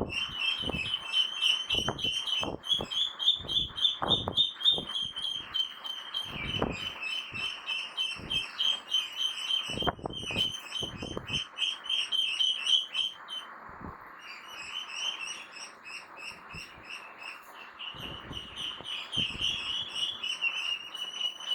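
Ducklings peeping rapidly and without pause, a dense high-pitched chorus, with intermittent splashing in the water.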